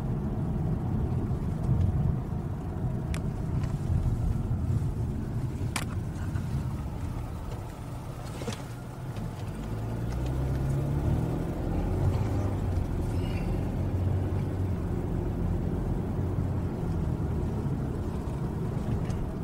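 A car's engine and tyre noise heard from inside the cabin while driving: a steady low rumble, with a few light clicks in the first half. The engine hum grows a little louder about halfway through.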